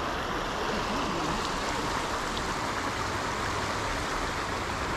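Steady rushing of water pouring over a low dam of piled logs and sticks into a swamp pool.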